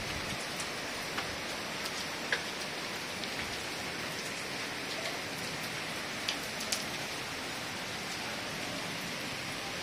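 Heavy rain falling in a steady, even hiss, with a few sharp ticks scattered through it.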